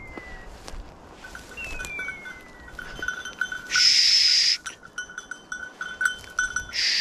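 Hunting dogs' collar bells tinkling irregularly as the dogs move through bracken, with a falling whistle-like tone early on and two loud, harsh electronic calls, typical of beeper collars: one about a second long near the middle, a shorter one near the end.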